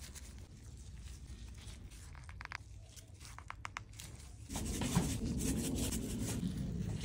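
Gloved hands handling raw rolled skirt steak and butcher's twine on a wooden cutting board: faint rustles and small clicks at first, then, about four and a half seconds in, a louder, steady rustling and scraping of meat and glove.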